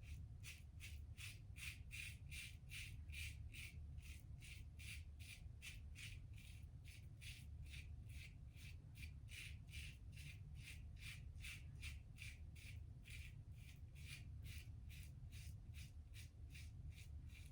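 Gillette Tech safety razor with a 3D-printed base plate scraping through stubble in short, quick strokes, about three a second, faint and steady in rhythm.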